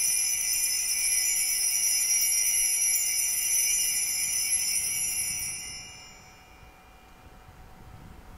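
Altar bells (Sanctus bells) shaken in a bright, sustained jingle that dies away about six seconds in. They are rung to mark the elevation of the consecrated host.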